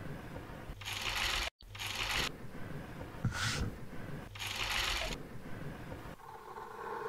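Fabric rustling as it is folded into pleats, in about four short bursts, with a sudden brief dropout about one and a half seconds in.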